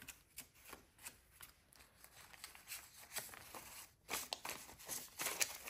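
Paper US dollar bills rustling as a stack of banknotes is handled and fanned through by hand: a run of soft, quick rustles that grows denser and louder about four seconds in.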